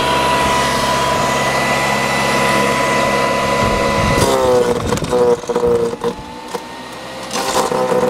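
SunJoe 14-amp electric wood chipper/shredder running at full speed with a steady whine, then dropping in pitch about four seconds in as sticks are fed into the hopper, with cracking and crunching as the wood is shredded.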